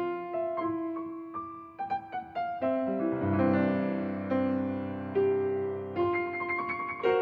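Solo piano playing a classical-style piece: separate struck notes and short figures ringing on, with deeper chords sustained from about three seconds in.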